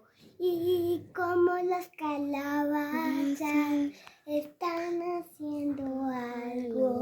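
A young girl singing an improvised tune in short phrases with brief pauses between them.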